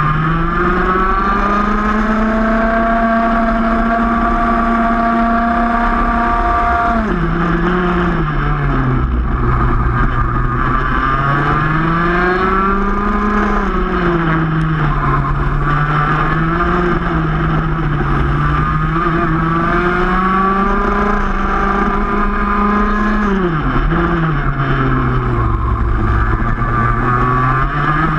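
Two-stroke racing kart engine heard onboard at race pace. Its pitch climbs out of the corners, holds high on the straights, and drops sharply under braking about 7 and 23 seconds in.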